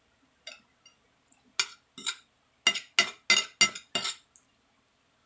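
Metal spoon clinking against a ceramic plate while scooping filling: a few scattered clinks, then a quick run of sharp clinks about three a second in the second half.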